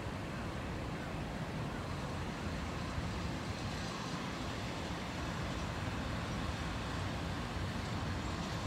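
Diesel freight locomotive running slowly along the track, heard as a steady low rumble mixed with open-air noise.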